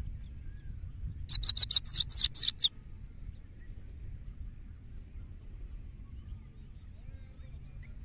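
Caged goldfinch giving one short, rapid twittering phrase of about eight quick, high, downward-sliding notes, about a second in and lasting just over a second.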